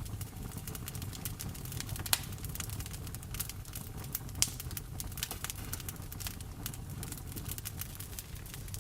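Wood fire crackling in a fireplace: a steady run of small sharp pops, two louder pops about two seconds and four and a half seconds in, over a constant low rumble.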